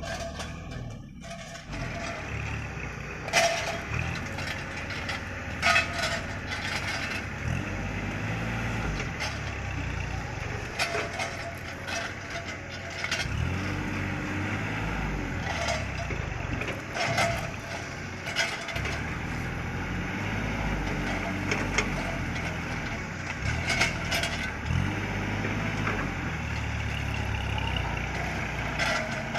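Kubota L3200 tractor's diesel engine running and repeatedly rising and falling in pitch as it drives the hydraulic crane grabber loading oil palm fruit bunches. Sharp knocks and clanks come every few seconds.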